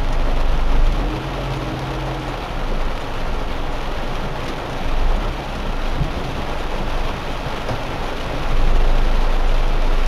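Heavy rain pelting a car's windscreen and roof, a dense steady hiss.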